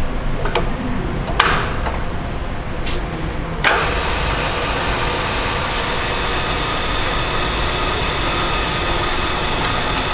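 Bridgeport J-head vertical milling machine: a few sharp clicks, then the spindle motor running steadily with a steady hum from a little over a third of the way in.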